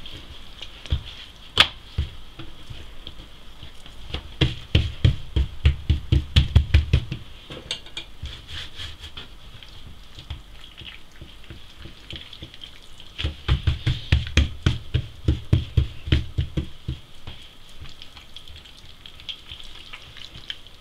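Hands working a thin sheet of msemen dough on a wooden tabletop, rolling it up, with two runs of quick soft thumps, about four a second, over a steady high hiss.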